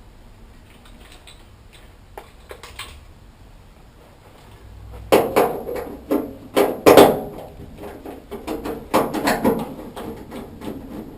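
Tools and a dryer's sheet-metal back panel being worked to remove its screws. After a quiet few seconds with a couple of faint clicks, loud metallic knocks and clatter begin about halfway through and continue irregularly.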